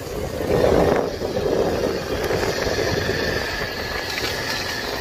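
Bajaj Pulsar 150 BS6's fuel-injected 150 cc single-cylinder engine running as the motorcycle is ridden along a road, mixed with wind and road rush. It is loudest from about half a second to a second and a half in, then steady.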